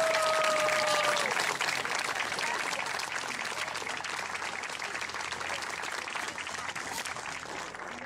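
Audience applauding at the end of a choir's song, with one voice holding a long cheer in the first second or so; the clapping slowly thins out and grows quieter.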